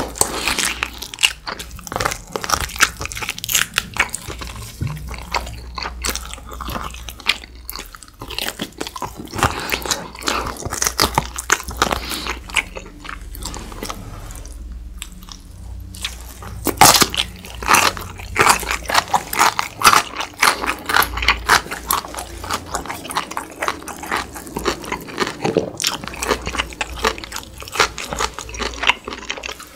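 Close-miked eating: wet chewing and biting on beef short-rib meat, then loud, rapid crunching from about 17 s in as a whole ponytail-radish kimchi (chonggak kimchi) is bitten and chewed.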